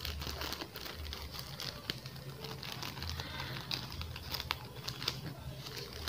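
Scissors cutting through a plastic courier pouch, with crinkling and sharp crackles of the plastic as it is handled and snipped.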